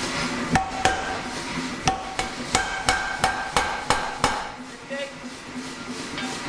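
Hammer blows on steel over an anvil, each strike ringing briefly, about three a second, easing off for the last two seconds.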